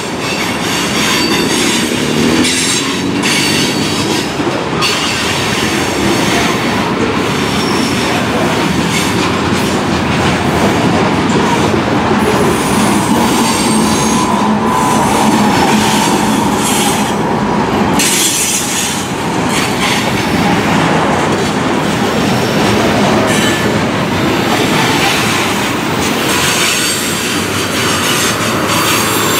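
Freight train of covered hopper cars rolling past close by, wheels clattering over the rail with a thin wheel squeal at times. Around the middle a mid-train diesel locomotive passes, its engine adding a low drone to the rolling noise.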